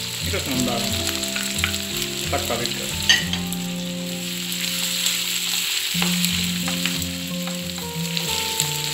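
Sausage slices, onion and green chillies sizzling in a non-stick frying pan as tomato wedges are tipped in and stirred with a wooden spoon, with one sharp knock about three seconds in.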